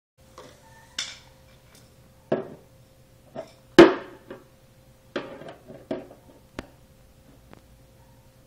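Irregular knocks and clicks of screwdrivers being handled against a plastic toy tricycle and the tile floor, about eight in all, the loudest a sharp knock a little under four seconds in. A faint steady hum underneath.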